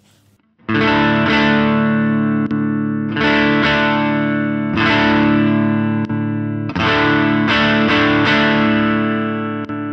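Electric guitar played through a NUX Ace of Tone dual overdrive pedal, on its Tube Man side with the fat boost switched on: four distorted chords strummed and left to ring, about two seconds apart.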